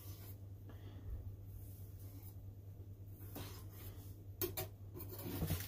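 Fingers working small raw mackerel fillets on a plastic cutting board: faint soft scrapes and taps, a few louder ones in the second half, over a steady low hum.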